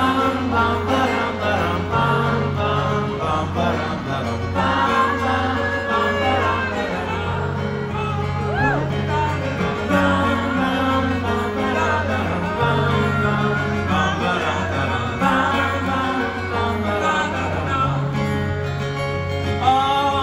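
Live folk song played on banjo and acoustic guitar, with male voices singing together into one microphone.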